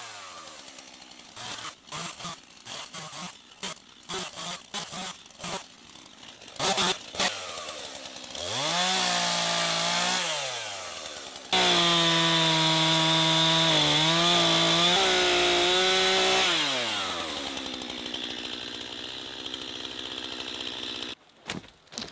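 Stihl two-stroke chainsaw bucking logs, with sawdust flying. After a run of knocks and clatter, it revs up about eight seconds in and drops back. It is then held at full throttle through a cut for about five seconds, the loudest part, and winds down.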